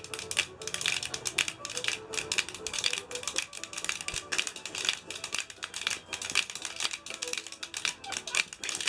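Several people playing spoons together: rapid, rhythmic clacking of spoons struck on the knee and hand, many clicks a second.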